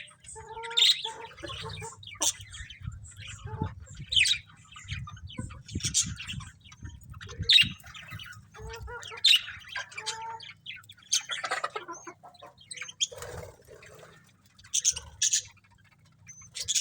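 Budgerigars chirping and chattering in quick, irregular short calls, over a low steady hum.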